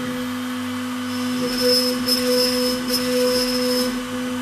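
Shapeoko 3 XXL CNC router's spindle running with a steady whine while its bit bores holes into the wasteboard. A harsher cutting hiss comes and goes from about a second and a half in.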